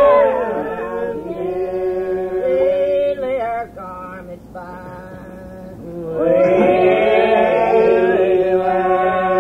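Old Regular Baptist congregation line singing a slow hymn without instruments, on an old cassette recording. A long held note ends at the start, the singing thins and drops quieter for a couple of seconds, and about six seconds in the congregation comes back in together on a new drawn-out line, voices sliding between notes.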